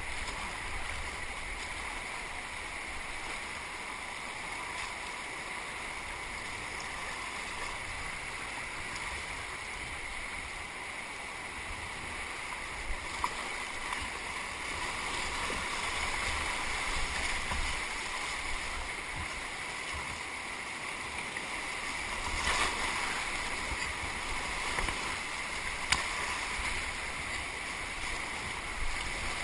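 Rushing rapids of a flood-swollen river around a whitewater kayak, with paddle strokes splashing in the water. There are a few sharp clicks, the loudest a few seconds before the end.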